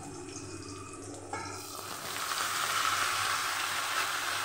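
Vegetables frying in oil in a metal wok: a soft sizzle that grows louder about two seconds in and holds steady, with sliced snake gourd cooking over onions.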